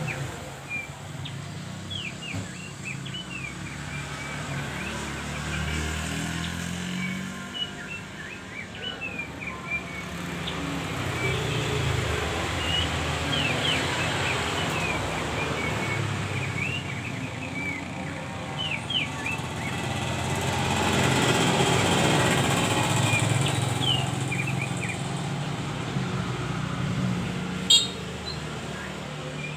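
Caged opior songbird singing a long run of short, quick chirps and whistles over a steady low rumble of motor traffic, which swells twice as vehicles pass. A single sharp click sounds near the end.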